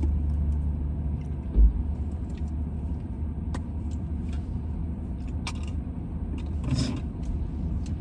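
A car running, heard as a steady low rumble, with a dull thump about one and a half seconds in, a few light clicks, and a brief rustling hiss near the end.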